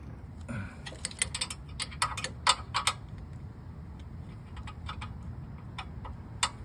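Irregular light metallic clicks and clinks from hand tools and metal parts being handled, several close together in the first three seconds, then a few scattered ones, over a low steady rumble.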